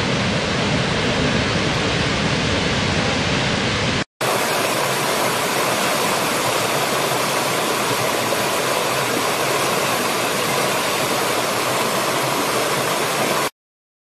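Waterfall roaring: a steady, loud rush of falling water. A little after four seconds in it drops out for a moment and another waterfall recording takes over, which cuts off suddenly near the end.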